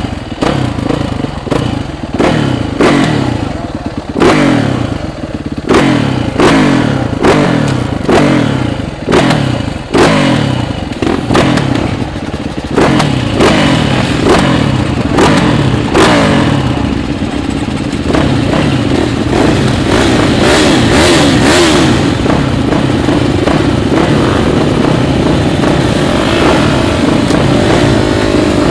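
Motocross bike engine at close range, revving up and down in quick succession with clattering knocks, then settling into a steadier high-revving run for the second half.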